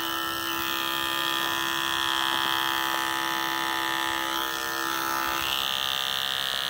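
Andis electric dog clippers running with a steady buzz while shaving a dog's neck fur against the grain. The tone shifts slightly about five and a half seconds in.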